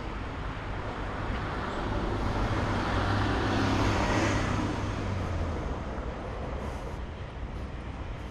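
A motor vehicle passing by on the street: its engine hum and road noise swell to a peak about halfway through, then fade away.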